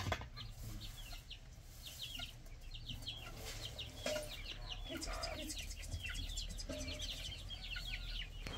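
A flock of young chickens peeping constantly in short, high, falling notes, several a second, gathered for feed, with a few lower hen clucks among them.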